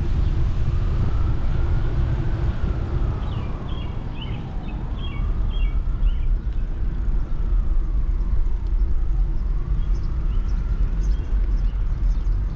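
Steady low wind and road rumble from a bicycle ride, with a faint wail that slowly rises and falls over it and a brief patter of high chirps a few seconds in.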